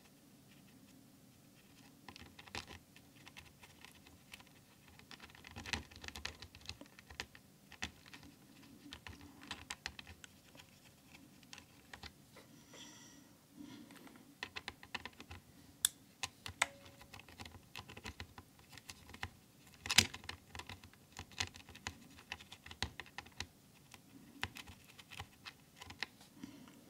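Blue clicky mechanical keyboard switch pressed over and over at an uneven pace, just lubed with hand cream. Its 'çıt çıt' click still comes through now and then, which the owner expects to fade as the lube works in.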